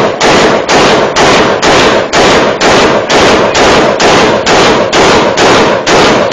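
Gunfire: a firearm fired in a steady string of very loud shots, about two a second, each followed by a short echo.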